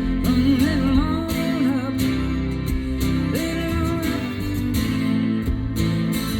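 A guitar-led song with melodic lines that bend in pitch, played back over a car audio system during a sound test.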